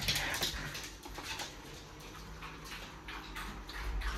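Faint sounds of a dog moving about indoors: soft, irregular clicks and rustles.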